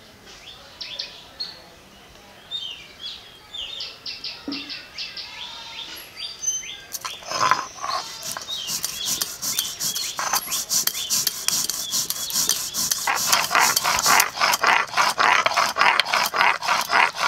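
A stone muller is rubbed fast back and forth on a grooved stone grinding slab (sil-nora), grinding poppy seeds into paste: a rasping scrape of several strokes a second. It starts about seven seconds in and grows steady and loud. Before it, birds chirp in quick repeated calls.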